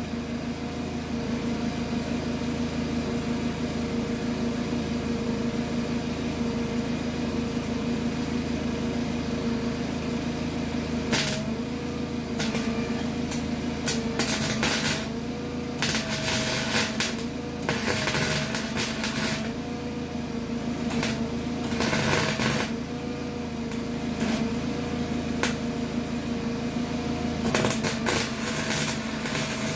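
Small 120-volt welder humming steadily, then, from about eleven seconds in, welding in repeated bursts of crackling arc, each a fraction of a second to a second and a half long. The arc pops and cracks because the bus floor steel being welded is rusty.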